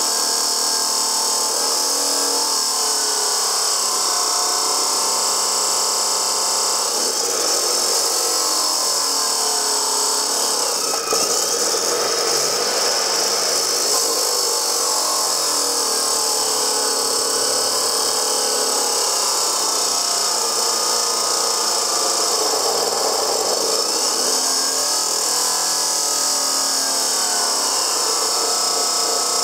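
Dewalt D28710 14-inch abrasive chop saw cutting through 1/8-inch-wall, 3-inch square steel tubing: a steady, loud abrasive grinding with a strong high hiss. Under it the motor hum wavers in pitch as the wheel is fed into the steel.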